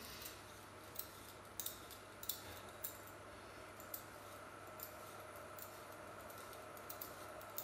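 Hand vegetable peeler scraping down a stalk of white asparagus, stripping the skin in short, sharp, irregularly spaced strokes.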